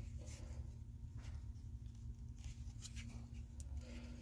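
Faint clicks and rustling of a plastic phone mount being handled and adjusted, over a low steady hum.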